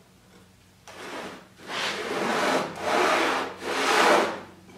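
Carpenter's pencil scratching along a speed square on a plywood table, drawing a marking line in four strokes of about a second each, the first fainter.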